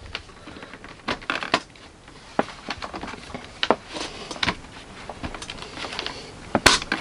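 Hard plastic parts of a toy car wash playset being pushed and snapped into place by hand: irregular clicks and taps, the loudest near the end.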